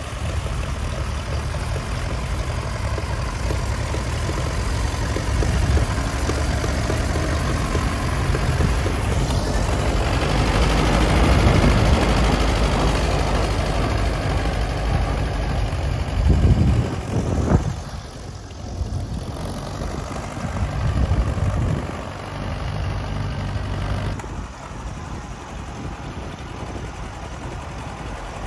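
Vintage tractor engines running as the tractors drive past one after another: a grey 1951 Ferguson TE20, then a red 1951 David Brown Cropmaster. The engine sound grows louder around the middle, then drops abruptly and runs on quieter.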